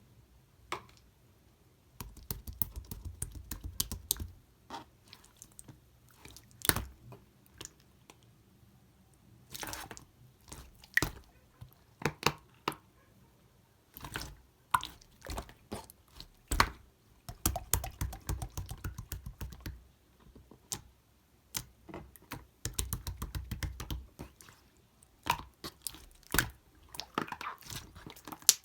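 Slime being squeezed and poked by hand, making wet clicks and pops with a few stretches of fast crackling.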